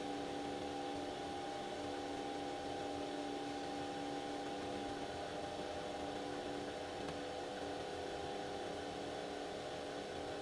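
Commercial batch freezer running, a steady mechanical hum with several held tones, as its dasher churns and pushes hard ice cream out of the spout.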